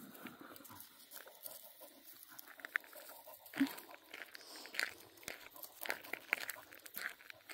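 Footsteps crunching on a gravel road at a walking pace, faint at first and then steady at about two steps a second, with one short low sound about halfway through.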